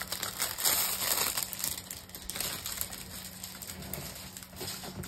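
Rustling and crinkling of a plastic-film-covered diamond painting canvas being unfolded and handled. The rustling is loudest in the first second or so, then goes on more faintly.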